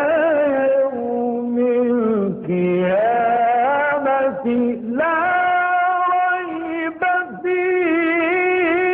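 A man's voice in melodic Quranic recitation (tajweed), drawing out long ornamented notes that waver and glide in pitch, with short pauses for breath between phrases. The sound is dull and cut off in the highs, like an old television recording.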